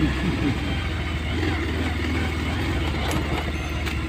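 Motorcycle engine running steadily at low speed while riding over a rough dirt trail, with a couple of faint sharp clicks about three and four seconds in.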